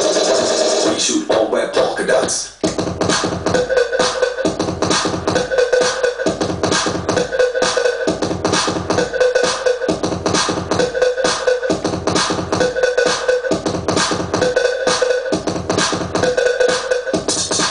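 Progressive electronic dance music played as a live DJ mix, with a steady driving beat. The music drops out for a moment about two and a half seconds in, then comes back with a short synth figure repeating about once a second.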